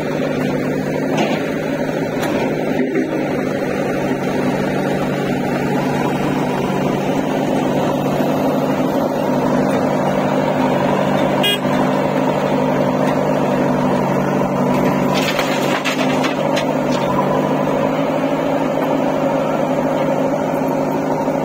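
Diesel tractor engines idling steadily, among them a John Deere 5105's three-cylinder diesel.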